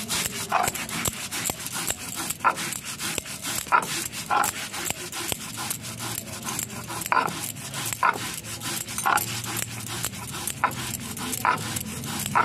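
Poppy seeds being ground by hand on a stone grinding slab (sil-nora): stone scraping on stone in repeated strokes, with many sharp clicks and short scrapes and no motor.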